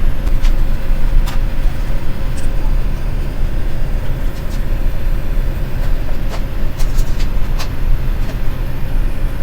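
Boeing 787-9 cabin noise in flight: a steady low rumble of engines and airflow, with a faint steady hum and a few light clicks.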